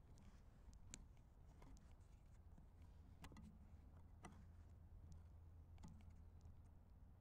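Near silence: a low steady rumble with a few faint sharp clicks.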